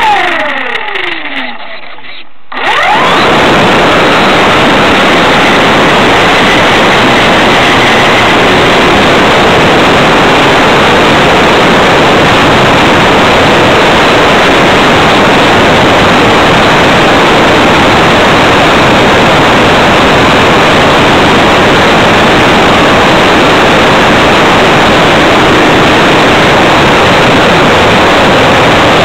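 Loud, steady, hissy noise of an RC Tiger Moth model plane's motor, propeller and rushing air, as picked up by a tiny onboard camera microphone. It settles in about two and a half seconds in, after a falling tone.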